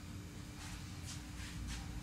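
Quiet kitchen room tone: a steady low hum with three faint soft ticks about half a second apart.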